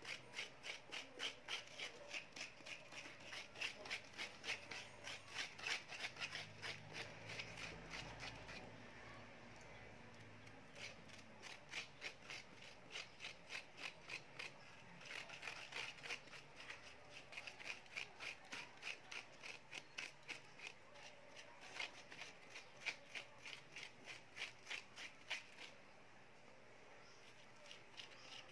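Metal spoon scraping cooked banana flesh out of the skins over a stainless steel bowl, in quick repeated strokes of about two or three a second, in runs with short pauses.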